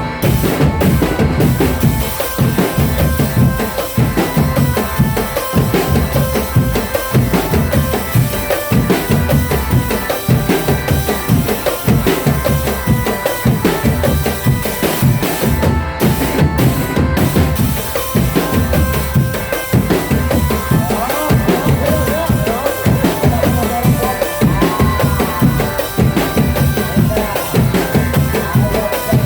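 Can macanan marching drum band playing a loud, driving beat, with bass drums and snare drums.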